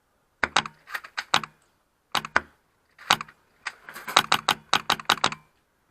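High-pressure-air airsoft gun firing: short groups of sharp shots, then a rapid string of about a dozen near the end.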